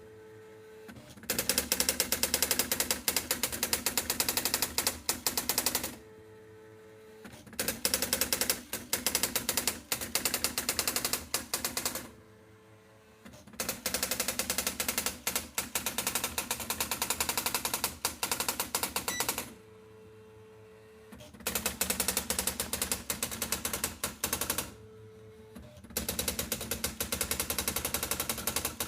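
Privileg 1200 electronic typewriter printing a self-test: lines of fast, even character strikes, each run lasting several seconds. Between lines come short pauses of about a second and a half that hold only a steady hum.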